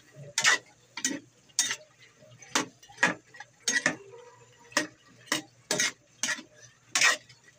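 A spatula knocking and scraping against a metal frying pan while stirring chunks of squash: about a dozen sharp clinks at roughly two a second, unevenly spaced.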